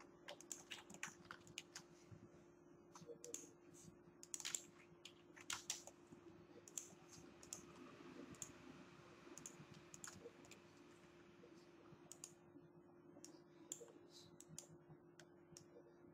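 Faint, irregular clicking of computer keyboard keys and a mouse, several clicks a second in places, over a low steady hum.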